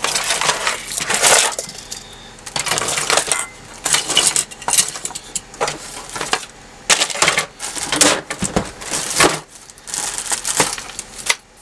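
Small hard parts clinking and rattling as someone rummages through them by hand while searching for a part, in irregular bursts of clatter.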